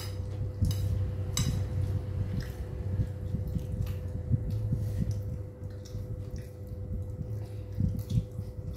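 Eating by hand from a clear plastic food container: soft squishing of sauced food and scattered small clicks and crackles of the plastic, over a steady faint hum.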